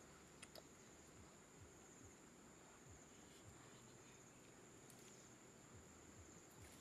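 Faint, steady high-pitched trill of insects, with a few light clicks.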